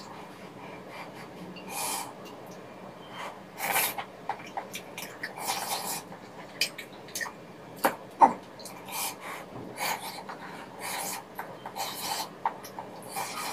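Close-miked eating sounds of soupy rabokki: noodles and broth slurped in short bursts every second or two, with chewing and a few sharp clicks of chopsticks against the dish about eight seconds in.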